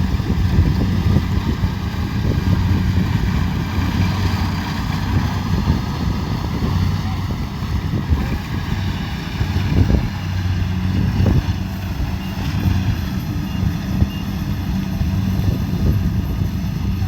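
Kubota DC70 Pro combine harvester's diesel engine running steadily with a low hum, with irregular rattling from the machine on top.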